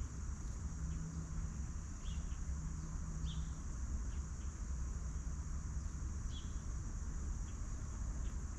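Outdoor farmyard ambience: a steady high-pitched insect drone, a low rumble, and a few short high chirps spread through it.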